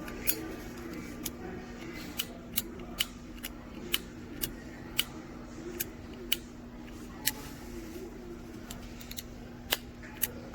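Piezo igniter of a Zippo butane double-torch lighter insert clicking over and over, over a dozen sharp clicks at uneven intervals about half a second to a second apart.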